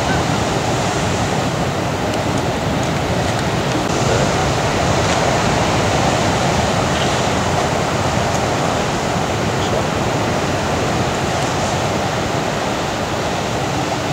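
Breaking ocean surf: a steady wash of crashing waves and whitewater.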